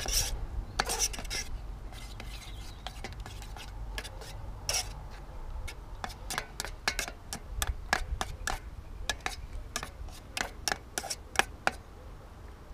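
Metal spoon stirring and scraping inside an aluminium camping pan of baked beans and sausages, many light, irregular clinks.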